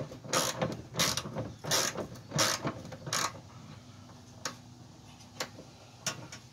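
Hand socket ratchet clicking in short back-and-forth strokes as it loosens a 15 mm bolt, about one stroke every two-thirds of a second; after about three seconds the strokes stop, leaving a few single clicks.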